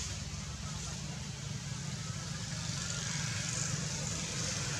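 Steady outdoor background noise: a constant low rumble under an even hiss, with no monkey calls.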